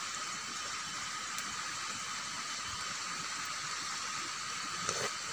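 Steady hiss and bubbling of a pot of prawn soup boiling hard over a wood campfire, with a faint steady high tone behind it.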